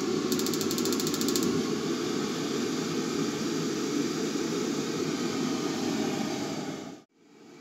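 Vaillant turboTEC pro wall-hung gas boiler firing up: the combustion fan and burner run with a steady rushing noise. Early on, a rapid train of ignition-spark clicks at about 18 a second lasts about a second. The sound cuts off suddenly near the end.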